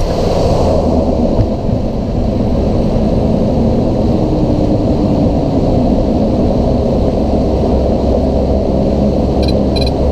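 Cessna 208B Grand Caravan EX's single turboprop engine and propeller running with a loud, steady rumble.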